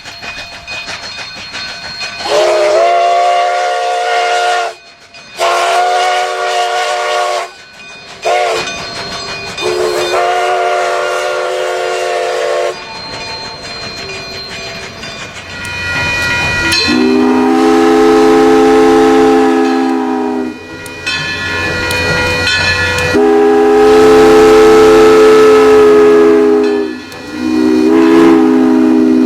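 Train whistle sounding a series of long blasts, each a chord of several notes. A higher-pitched set of four blasts, one of them short, comes first; about halfway a lower-pitched, louder set of long blasts follows over the rumble of the train.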